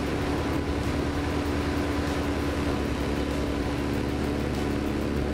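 Small fishing boat under way across a lake: its motor runs steadily with a constant hum, under a continuous rush of wind and water.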